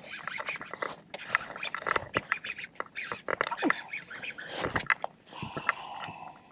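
A baitcasting reel is cranked while fighting a hooked fish. Irregular splashes and clicks come from the water and the tackle.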